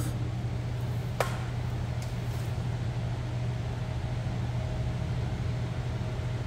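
Steady low mechanical hum of the room, with one sharp click about a second in and a faint, thin higher tone joining about halfway through.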